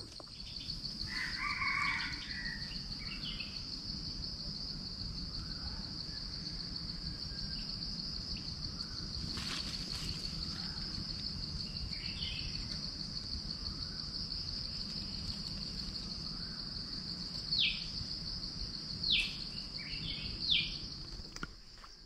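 Steady high-pitched drone of insects, crickets or cicadas, with scattered bird chirps; near the end a bird gives three short falling calls.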